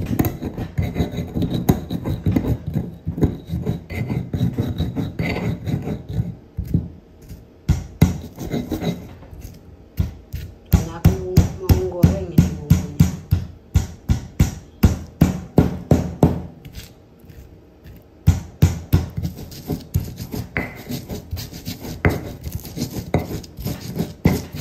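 Stone pestle grinding coriander seeds and garlic on a flat stone mortar (cobek/ulekan): grating rubs of stone on stone, with runs of sharp knocks about two to three a second as the garlic is crushed.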